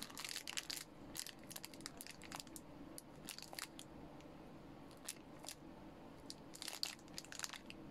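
Thin clear plastic bag crinkling and crackling faintly in irregular small ticks as the pedometer wrapped in it is turned over in the hands.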